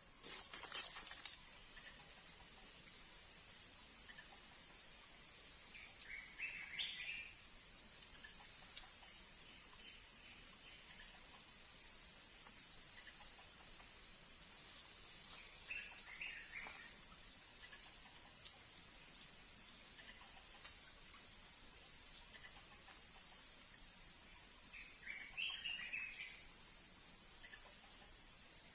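Insects chirring in a steady, unbroken high-pitched drone, with three short bird calls spaced about ten seconds apart.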